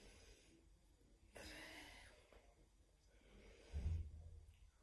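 Faint breathing of a person stretching, with a soft exhale about a second and a half in and another near three seconds, then a short low thump near the end.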